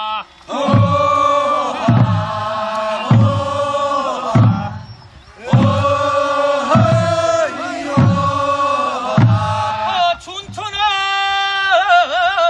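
A group of villagers singing a traditional Korean folk song together in long, held phrases, with low thumps about once a second keeping time. The singing breaks off briefly about five seconds in, and near the end one man's voice sings alone, leading the next verse.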